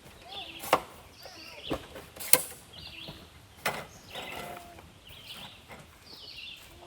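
Sharp knocks at uneven intervals, four in the first four seconds, with birds chirping repeatedly in the background.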